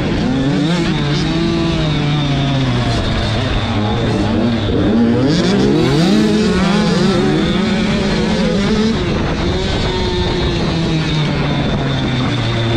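Motocross dirt bike engine heard from on board, its pitch repeatedly rising and falling as the rider works the throttle and shifts through the gears while racing.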